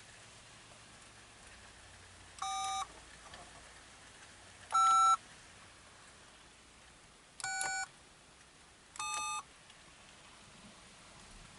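Four separate touch-tone beeps from the K.I.T.T. replica's dashboard keypad, each a two-tone telephone-style tone of about half a second, the pitch pair changing from beep to beep.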